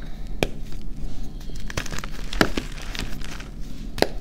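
Glitter-coated reformed gym chalk being crunched and crumbled into powder between the fingers: a run of irregular dry crackles, with a few louder snaps about half a second in, halfway through and near the end.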